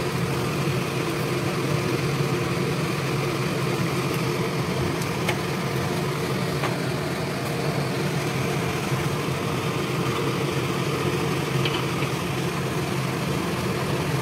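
Steady low kitchen hum with several held low tones, unbroken throughout, while oil heats in a wok over a gas burner.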